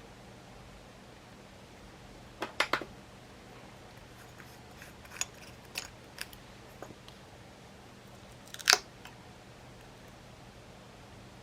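Scattered sharp clicks and taps of small hard objects being handled: a quick cluster of about four a couple of seconds in, a few fainter ones after, and the loudest single click near the end, over a faint steady hum.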